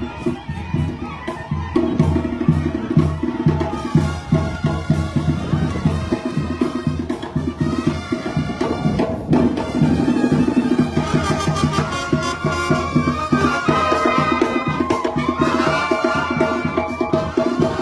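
Live Sinaloan banda playing: brass melody over a steady drum and bass beat.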